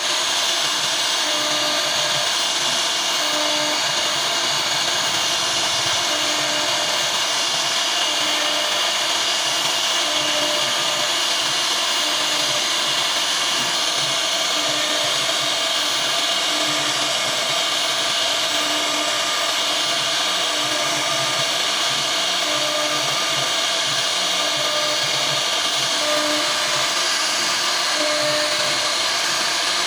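CNC router spindle running steadily as it carves a design into wood, a continuous high-pitched whir. A faint low note recurs every second or two.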